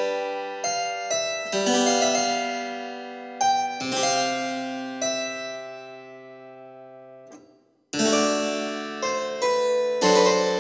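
Background music of keyboard chords, each struck sharply and left to ring away. About three quarters of the way through it dies to a brief silence, then starts again.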